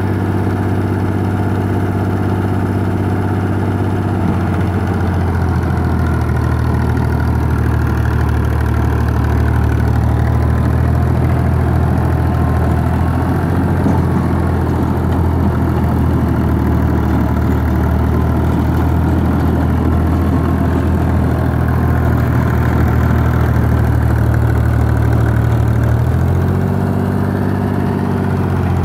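Fiat 480 tractor's three-cylinder diesel engine running steadily under load while it drives a rear-mounted rotary tiller through the soil. The engine speed rises about four seconds in, holds, and drops back near the end.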